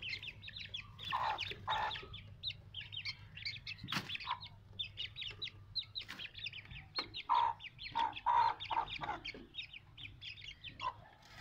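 Aseel chicks peeping rapidly and continuously while the hen clucks, her clucks loudest in a couple of short groups about a second in and again around seven to eight seconds in. A single sharp knock comes about four seconds in, over a steady low hum.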